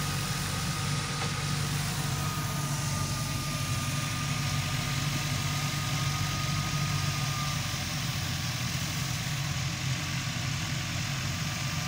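A 640 tractor's diesel engine running steadily under load, driving a thresher, with a thin steady whine over the engine hum.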